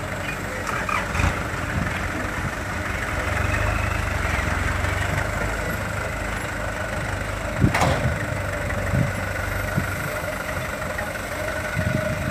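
Light dump truck's diesel engine running as the truck manoeuvres slowly over rough ground, with a few sharp clanks, the loudest about two-thirds of the way through.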